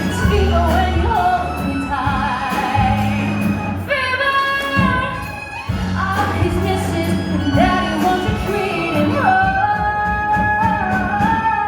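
Live band of drums, keyboard and violin playing a song with a female vocalist singing. A long note is held near the end.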